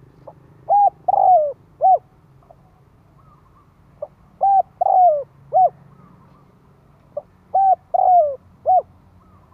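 Spotted dove cooing its song three times, every few seconds. Each phrase is a short soft note and then three coos, the middle one longest and sliding down in pitch.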